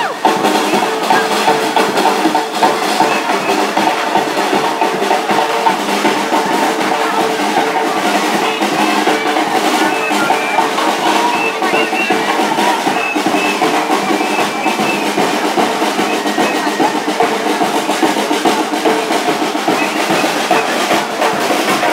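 Gombey drum band playing: snare drums rattling in fast rolls over a bass drum, a dense steady rhythm for dancers.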